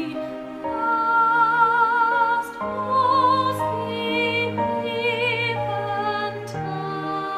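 Classical soprano voice singing a slow melody, with wide vibrato on long held notes, over an instrumental backing.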